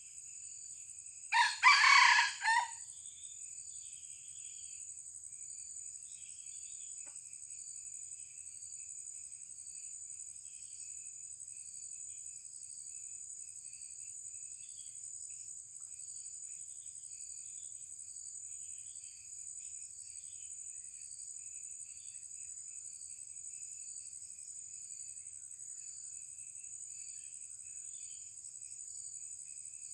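A red junglefowl rooster crows once, a short crow about a second and a half in. A steady high insect drone and faint chirps continue behind it.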